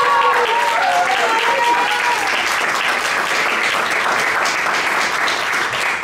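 Audience applauding steadily, with several voices cheering over the clapping for about the first two seconds.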